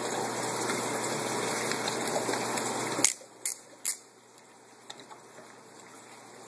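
Steady rush of running water in an aquaponics tank system that cuts off suddenly with a click about three seconds in, followed by two more light clicks and then quiet.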